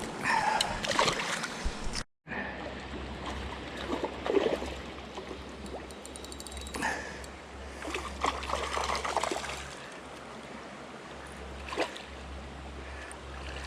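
Creek water running steadily, broken by several brief louder noises. The sound drops out completely for a moment about two seconds in.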